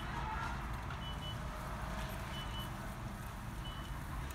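Low steady rumble of a car idling, with a short high electronic beep repeating about every 1.3 seconds.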